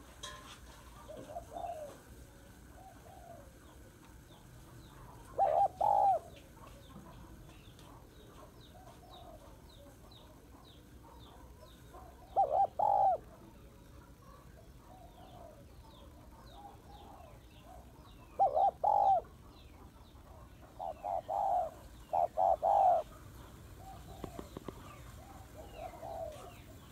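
Spotted dove cooing in short phrases of two or three notes, one about every six seconds, with a longer run of notes near the end and fainter coos in between. Faint high chirps of small birds sound in the background.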